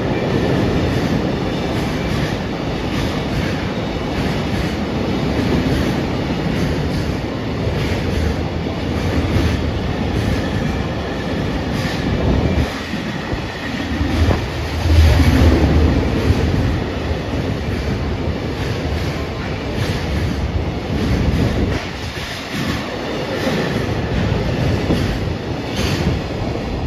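Long container freight train running through a station at speed, close by: a steady rumble of wagons with a repeated clickety-clack of wheels over the rails.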